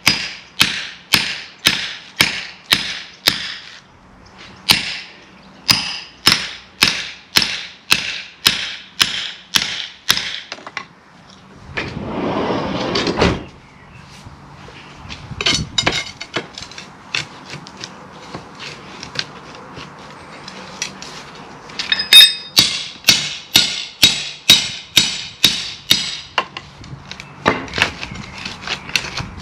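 Club hammer striking a steel chisel against a brick wall, sharp metallic blows about two a second. There are two runs of blows, the first ending about ten seconds in and the second starting about eight seconds before the end, with a short scraping of brick and lighter knocks in between.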